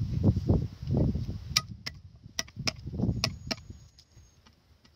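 A garlic bulb being broken apart by hand into cloves on a wooden chopping block. There are dull knocks and handling noise at first, then a series of sharp clicks as the cloves snap off and are set down.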